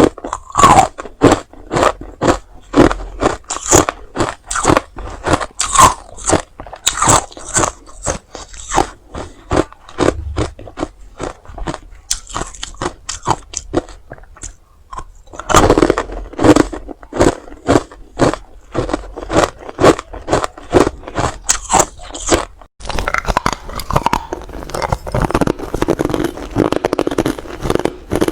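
Hard ice being bitten and crunched between the teeth close to the microphone: a run of sharp crunches, about two a second. The crunching thins out for a few seconds in the middle, and after a brief break near the end it turns denser and grittier.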